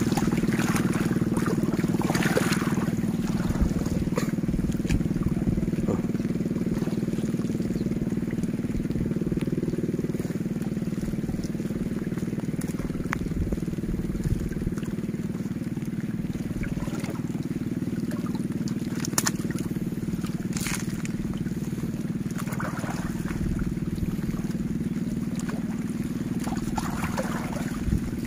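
Water splashing and sloshing now and then as a net is hauled by hand through shallow water and tangled water hyacinth, over a steady low rumble.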